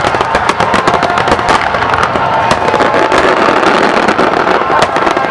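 Aerial firework shells bursting in a dense, continuous barrage, many bangs a second overlapping with crackle.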